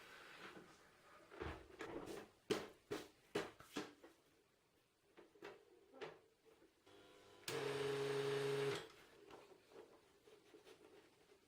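Typewriter at work: a run of sharp key clacks, dense for a couple of seconds and then scattered. About halfway through comes a steady mechanical rasp lasting just over a second.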